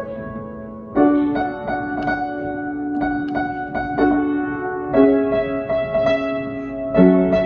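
Slow background piano music, with new chords struck every couple of seconds over held notes.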